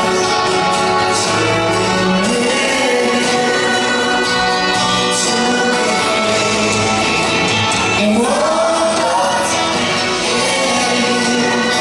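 Live band performance of a slow rock ballad in a large hall, with singing by a lead singer and female backing singers over guitar and violins.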